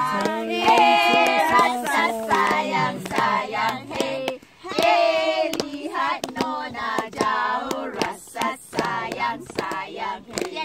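Group of women singing a song together, with hand claps keeping time; the singing breaks briefly about four seconds in.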